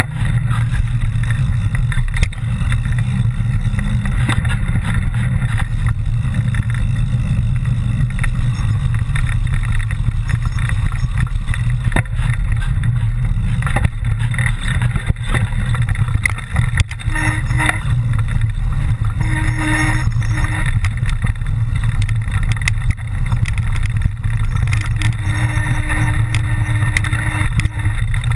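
Mountain bike descending a trail, heard from a camera on the bike or rider: a steady low rumble of wind and tyres, with frequent rattling clicks from the bike over rough ground.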